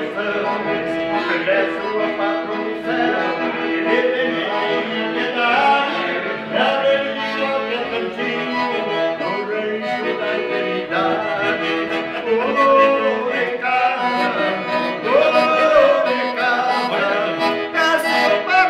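Piano accordion played live, with a man singing along.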